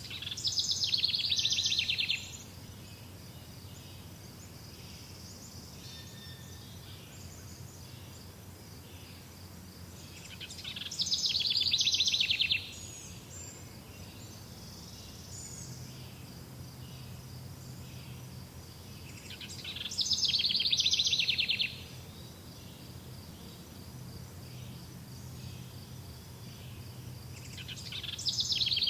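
A songbird singing the same rapid trilled phrase, about two seconds long, four times at roughly nine-second intervals, over a faint steady outdoor background.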